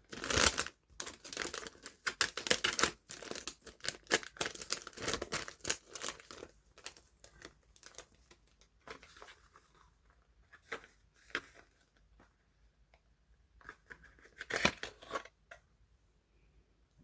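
Soap packaging being unwrapped by hand, the wrapping crinkling and tearing. It is busy for about the first six seconds, then thins to occasional rustles and taps, with a short burst of crinkling near the end.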